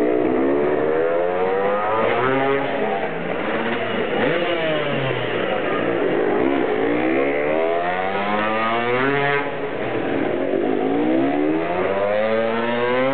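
Motocross dirt bike engines revving, the pitch sweeping up and down again and again, with two engines overlapping at times.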